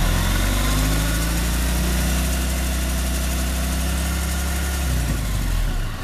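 1997 Volkswagen Jetta engine, hot after more than an hour of running, revved up from idle and held at a steady higher speed for about four seconds, then let drop back toward idle near the end. This is a throttle blip during an oil-pressure test, bringing the pressure up to 40 PSI.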